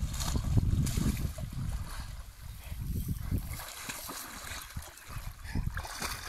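German Shepherd swimming and splashing through a creek, its paddling legs churning the water in irregular splashes.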